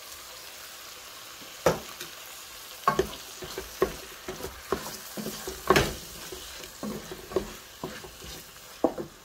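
A wooden spoon stirs a wet yogurt-spice paste into onions and tomatoes frying in a pot, with a steady sizzle. Irregular knocks and scrapes of the spoon against the pot come through it, the loudest about two seconds and six seconds in.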